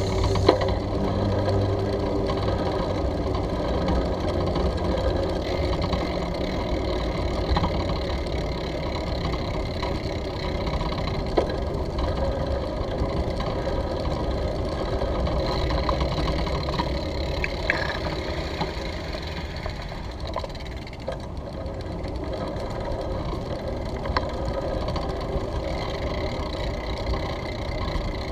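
Steady rattling rumble of a bicycle rolling over brick pavers, carried straight into a handlebar-mounted camera, with a few light clicks.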